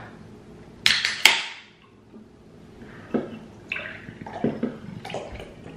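A can of canned espresso with cream cracked open by its pull tab: a sharp snap and short hiss about a second in. From about three seconds on, the coffee pours from the can into a plastic cup in uneven glugs and splashes.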